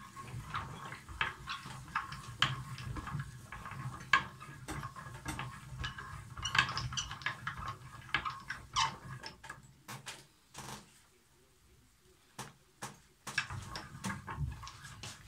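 Hand-cranked cast-metal meat grinder turning and crushing walnuts: a dense run of crunching, crackling clicks over a low rumble. It eases to a few scattered clicks about ten seconds in, then picks up again near the end.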